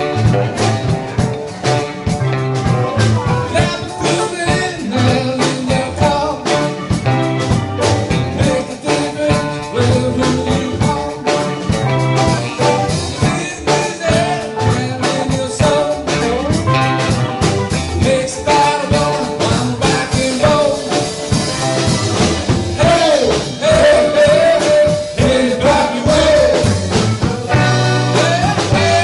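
Live band playing electric guitars, bass guitar, drum kit and electric keyboard.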